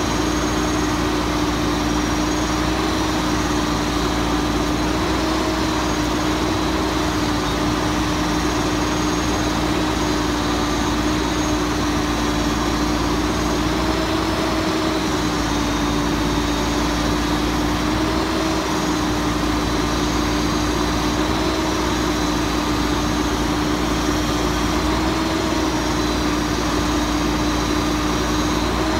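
Diesel engine of a Mack Granite Bagster garbage truck running steadily while the truck's crane works. The engine gives a constant hum with a tone that wavers slightly in pitch.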